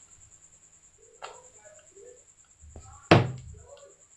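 A single loud knock on the workbench about three seconds in, with a short ringing tail, and a lighter click about a second in, over a faint steady high-pitched whine.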